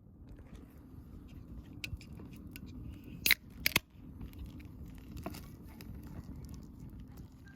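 Freshly lit wood fire burning, a low steady rush with scattered crackles and two sharp pops a little past three seconds in.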